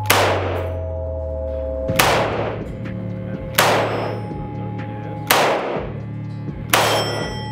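Stechkin APS machine pistol firing 9x18 mm Makarov rounds one at a time: five single shots about one and a half to two seconds apart, each echoing in an indoor range.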